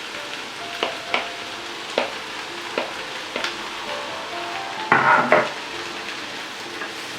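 Food sizzling in a pan while being stirred with a utensil that knocks against the pan every second or so. A louder clatter of stirring comes about five seconds in.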